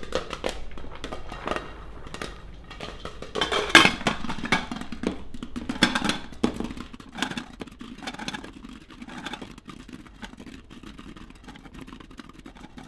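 Popcorn kernels popping in a covered steel pot as it is shaken back and forth on an electric stove burner: a rapid, irregular crackle of pops over the rumble of the pot sliding, thinning out in the second half as most of the kernels have popped.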